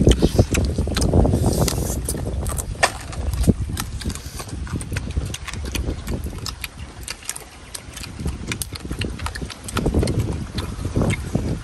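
Close-up eating sounds of roast duck: chewing and lip smacking, with many sharp, wet mouth clicks as meat is torn and eaten off the bone.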